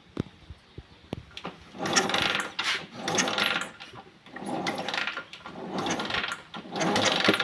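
Yamaha Jupiter MX engine being cranked over in about five short bursts, roughly one a second, without starting. It is a hard cold start, and the owner takes it as a sign of low compression.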